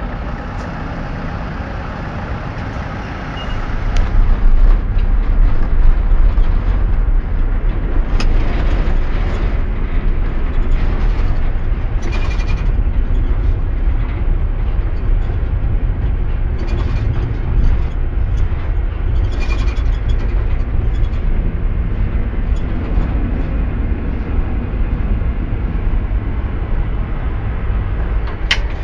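Tram running on street track: a low rumble that grows louder about four seconds in and then carries on steadily, with a few sharp clicks near the end.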